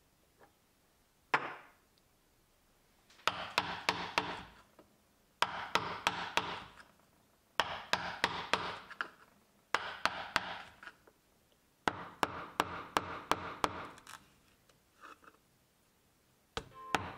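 A ripping chisel is tapped repeatedly with a wooden mallet to drive its fork under old upholstery nails and tacks. The sound comes in five bursts of sharp taps, each followed by scraping and tearing as the tacks are levered out of the wooden seat frame and the old fabric. A single knock sounds just over a second in.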